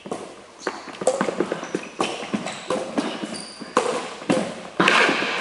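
Badminton rally: rackets popping against the shuttlecock, quick footsteps and brief shoe squeaks on a wooden sports-hall floor, busier and louder near the end.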